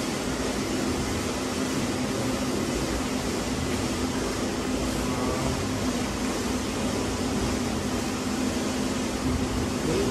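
Steady mechanical drone: an even rushing hiss with a constant low hum under it, unchanging throughout.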